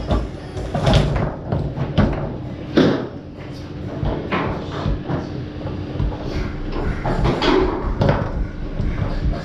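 Foosball being played on a Tornado table: irregular sharp clacks and knocks of the ball against the players and the table.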